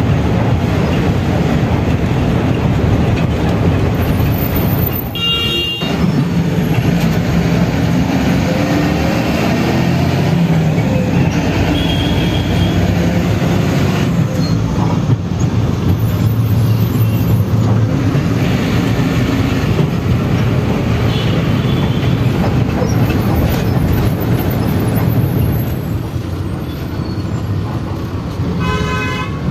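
A moving bus heard from inside the cabin: the engine runs with road rumble, its note rising and falling with the traffic. Short high-pitched tones sound about five seconds in and again near the end.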